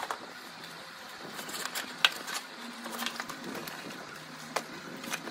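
Light clicks and knocks of plastic food containers being packed into a fabric tote bag, a handful of scattered taps, the sharpest about two seconds in.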